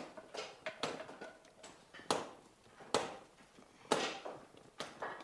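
A series of sharp knocks, about one a second, as round loaves in dark baking pans are handled and the pans bump together.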